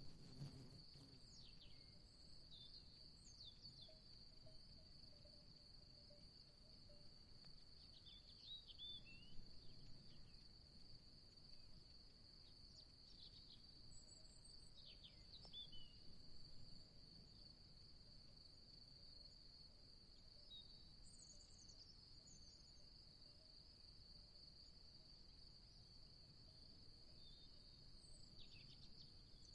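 Faint outdoor soundscape: a steady, unbroken high insect trill, with a few short bird chirps scattered through.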